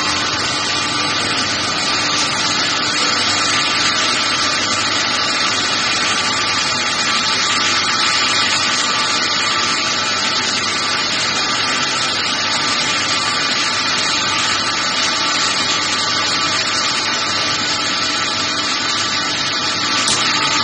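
Steady machinery noise from an automated chemical-barrel cleaning line: a continuous hiss with a couple of steady humming tones running through it.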